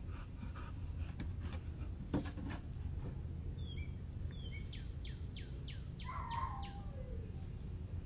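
A bird calling: two short falling whistled notes, then a quick run of about seven falling notes, over steady low background noise. A single sharp knock about two seconds in.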